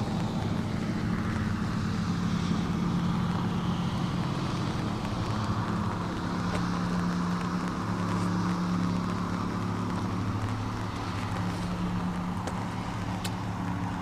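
A boat's motor running steadily, a constant low hum, with wind and water noise over it.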